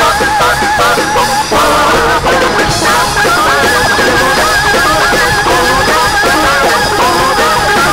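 Loud live gospel music from a church band, a steady dense sound with wavering pitched lines and no spoken words.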